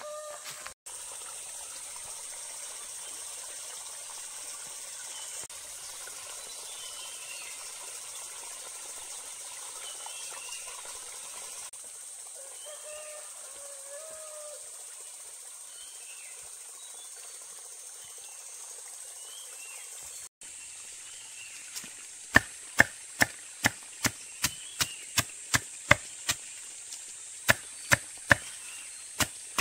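Steady high insect drone with scattered faint bird chirps. About three-quarters of the way in, a run of sharp chopping strokes begins, two or three a second with a short pause, much louder than the background.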